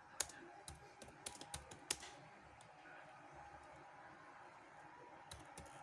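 Keystrokes on a computer keyboard: a quick run of typing in the first two seconds, a pause of about three seconds, then a few more keys near the end.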